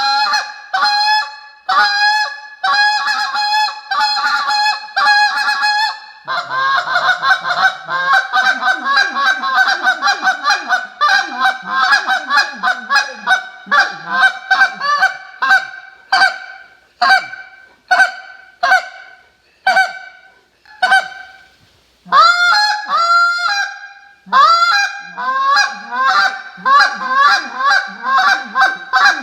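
Alpha Canada goose call, a hand-blown call with broken-in guts, blown in a calling sequence of deep honks, moans and fast clucks. Quick runs of short notes give way to a slower string of single notes in the middle, then speed up again near the end.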